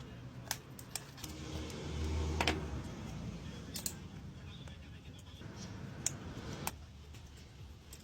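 Scattered light clicks and taps of small tools and phone parts being handled during an iPhone 11 screen repair.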